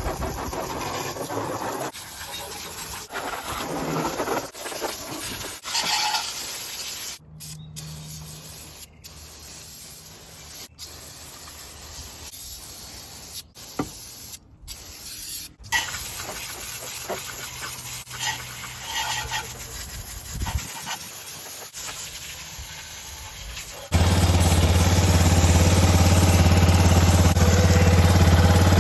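Spraying and hissing with rubbing and scraping, broken into short pieces by several abrupt cuts. About 24 seconds in, an engine starts idling steadily and is louder than the spraying.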